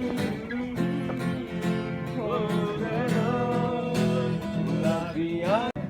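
Music with guitar and a singing voice carrying a wavering melody.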